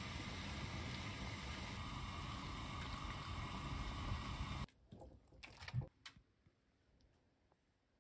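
Water at a rolling boil in a pan on a gas stove, a steady bubbling rush, with chamnamul greens blanching in it. It cuts off suddenly a little past halfway, and a few light knocks and taps follow.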